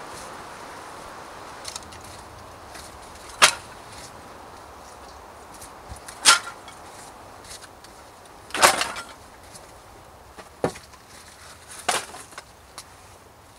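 Split wood kindling and bark pieces set down on bare earth to build a fire lay: five sharp wooden knocks and clatters a couple of seconds apart, the third a longer rattle, over a soft steady hiss.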